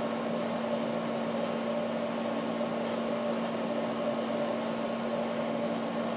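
Steady mechanical hum of a running appliance, with an even low tone and a hiss that do not change, plus a few faint ticks.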